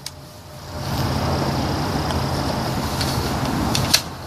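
A motor vehicle running steadily past, a low rumble that swells in about a second in, with a single sharp click near the end.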